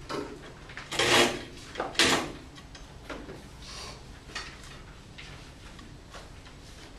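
Classroom handling noises: two brief, loud scuffs about one and two seconds in, then a few fainter rustles and knocks over steady room noise.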